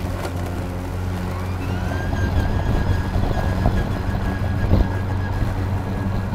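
EGO Power+ LM2135SP 56 V battery self-propelled lawn mower running steadily while cutting grass, with a low hum. About one and a half seconds in, a whine rises in pitch and then holds steady. A single thump comes about five seconds in.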